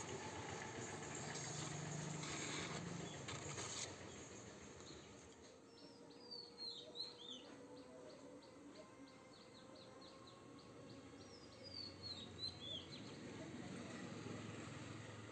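Birds chirping: a few quick, high, downward-sweeping calls about six seconds in and again about twelve seconds in, with a fast run of ticks between. A steady hiss fills the first four seconds and stops suddenly.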